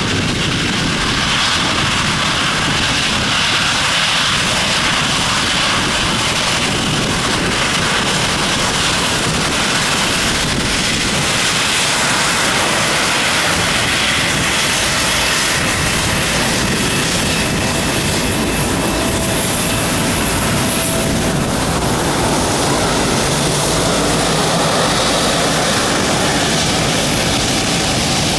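Boeing 777-300's jet engines at low taxi thrust: a steady loud rush with a faint high whine. Gusty wind buffets the microphone.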